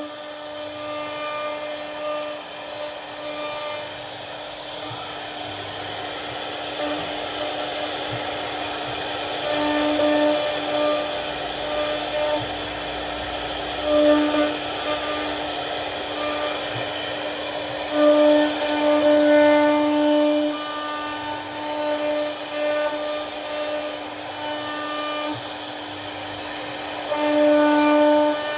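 CNC router spindle running with a steady whine while its bit carves wood, with a rasping cutting noise alongside. The whine grows louder several times as the cut takes more load, most strongly about two-thirds of the way in and near the end.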